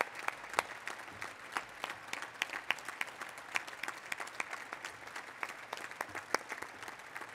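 Large crowd applauding: a steady wash of clapping, with individual nearby hand claps standing out sharply.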